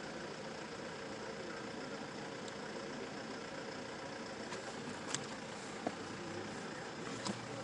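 Steady mechanical hum with a few faint, sharp clicks in the last few seconds.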